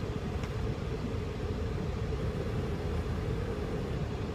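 Steady low rumble and hum inside a car's cabin, the engine idling while parked.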